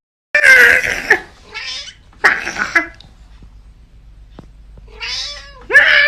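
A domestic cat yowling and meowing loudly, about five drawn-out, wavering calls in a row with short pauses between them.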